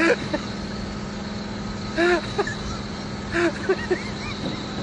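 A steady mechanical hum runs underneath, with a few short voice sounds about two seconds in and again about three and a half seconds in.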